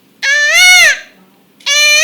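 A person imitating a peacock's call with the voice: two loud, pitched calls, each held and then falling away in pitch at the end, the second beginning about a second and a half in.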